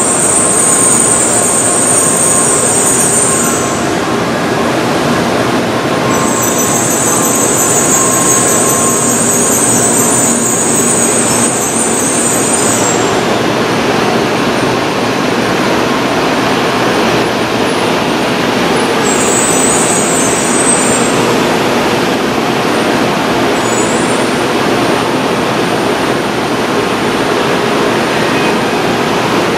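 An N700A Shinkansen train slowing to a stop alongside the platform, with a steady, loud rumble throughout. A high, shrill hiss sounds over it for the first few seconds, again from about six to thirteen seconds in, and briefly twice later.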